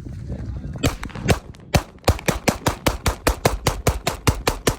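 Taran Tactical Pit Viper pistol firing: three spaced shots, then a fast, even string of about five shots a second.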